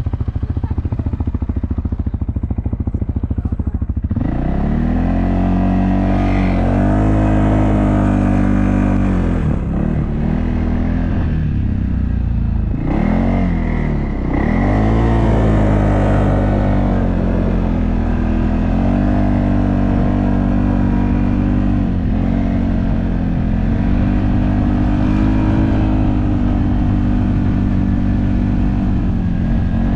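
CFMoto off-road vehicle engine idling, then pulling away about four seconds in. The revs rise and fall several times before holding steady under throttle.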